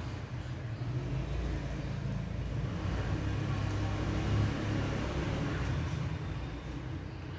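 A steady low mechanical rumble, like an engine running.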